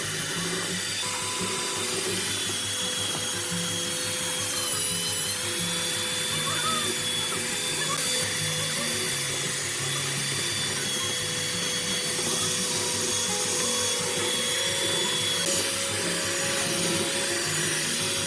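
Background music over the steady high whine of a power tool, its pitch dipping briefly about five seconds in.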